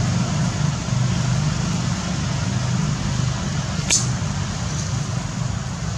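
Steady low rumble and hiss of background noise, with one sharp click about four seconds in.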